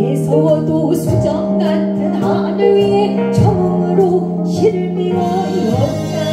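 Live gugak ensemble playing a gugak-pop song: a melody of bending, wavering notes over sustained low tones.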